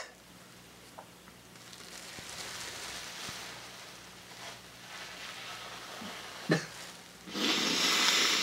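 Soft rustling of a cloth towel being wiped over the face and handled, then a louder burst of rustling lasting about a second near the end.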